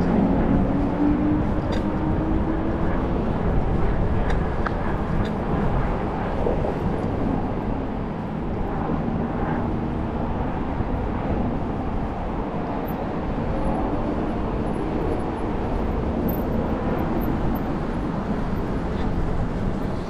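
Steady rushing noise of a moving bicycle ride, with wind on the microphone and a hum of road traffic. A low vehicle drone rises slightly over the first few seconds.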